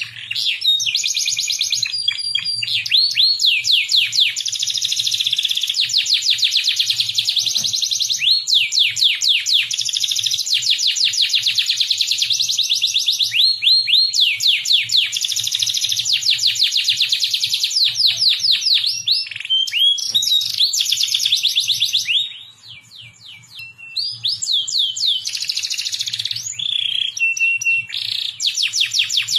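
Domestic canary singing a long song of fast trills, each trill a quick run of the same rising note repeated many times, the runs changing in pitch and speed one after another. The song breaks off for about two seconds roughly three-quarters of the way through, then resumes.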